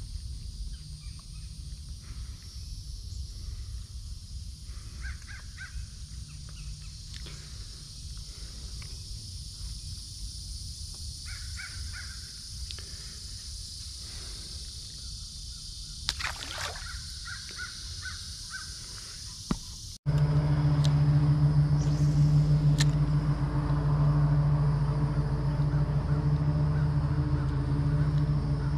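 Crows cawing now and then over a low wind rumble. About two-thirds of the way through it cuts to a louder, steady low hum.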